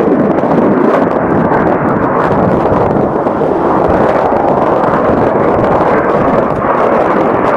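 Eurofighter Typhoon fighter jet's engines in flight: a loud, steady rush of jet noise that does not rise or fall.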